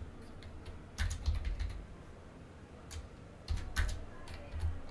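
Computer keyboard typing: quick runs of keystrokes about a second in and again from about three and a half seconds, with a single keystroke between them.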